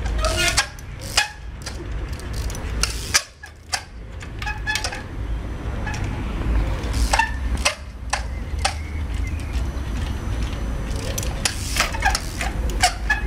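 Trials bicycle hopping and landing on concrete: a dozen or so sharp knocks and clicks at irregular intervals as the tyres touch down, over a steady low rumble.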